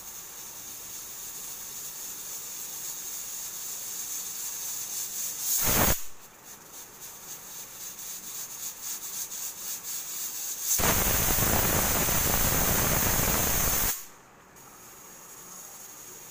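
Aluminium pressure cooker on a high gas flame hissing as pressure builds, with a short burst of steam about six seconds in. About eleven seconds in it whistles: a loud blast of escaping steam for about three seconds that cuts off suddenly, one of the 4 to 5 whistles counted for cooking the chickpeas.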